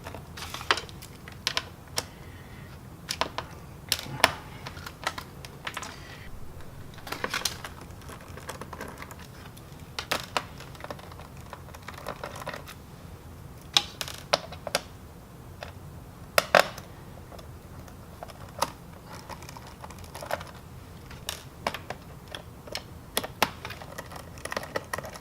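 Irregular small clicks and taps of a precision screwdriver working screws out of a laptop's plastic bottom cover.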